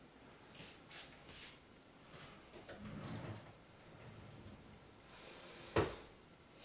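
Wooden kitchen cabinet door opened and handled, with soft clicks and rustles, ending in one sharp knock near the end as the door shuts.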